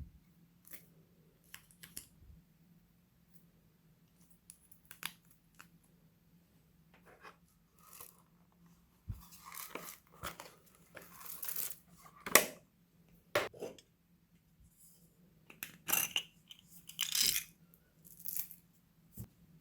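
Scattered handling noises from slime-making materials and containers: rustling, crinkling and tearing sounds and sharp clicks, the loudest click about twelve seconds in.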